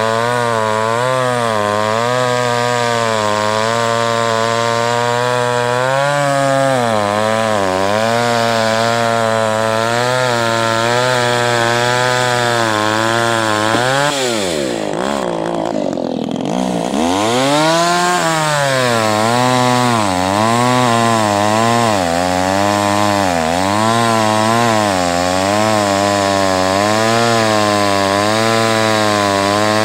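Kioritz Echo CS-315 two-stroke chainsaw cutting through a log at full throttle, its engine note wavering as it bogs and recovers under load. About halfway through, the revs fall away briefly toward idle, then climb back up into the next cut.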